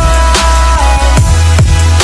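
Electronic dance music with a heavy bass line, punchy kick drums about twice a second and sustained synth chords; no vocals.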